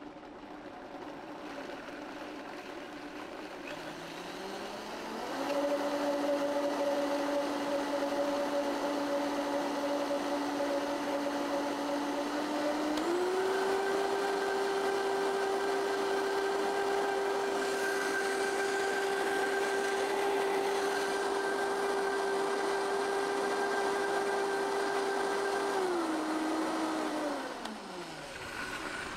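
High-powered countertop blender pureeing soaked cashews and dates with water. The motor starts low, rises in pitch about five seconds in, steps up to a higher, steady speed about thirteen seconds in, then steps down and winds to a stop near the end.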